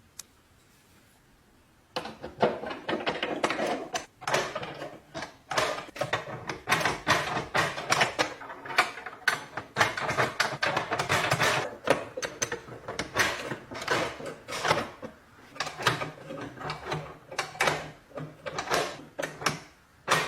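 Restored metal lock being worked by hand: irregular mechanical clicks and rattles of its mechanism, starting about two seconds in and running on densely.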